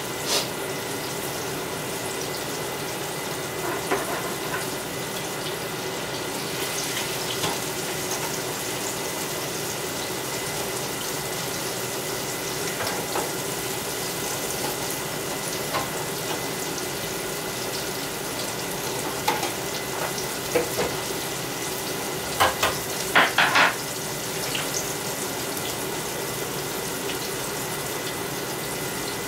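Food frying in a pan of hot grease, a steady sizzle. A cluster of sharp clicks stands out about three-quarters of the way through.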